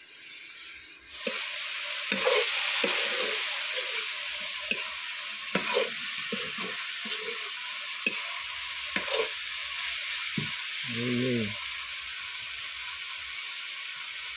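Firewood burning in a clay stove: a steady hiss with irregular crackles and pops, starting about a second in.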